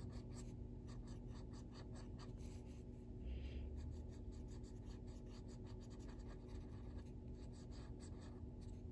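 Soft-core colored pencil (Faber-Castell Black Edition) scratching on paper in quick, short shading strokes. There is a soft low bump a little after three seconds in.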